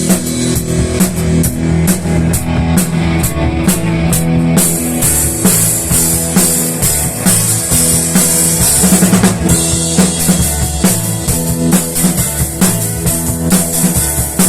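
Instrumental rock music: a full band with drum kit, bass and guitar, with no singing; the cymbals get louder about four and a half seconds in.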